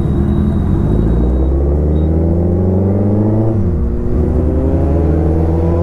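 Motorcycle engine accelerating hard, rising in pitch, then dropping sharply for an upshift about three and a half seconds in and climbing again in the next gear.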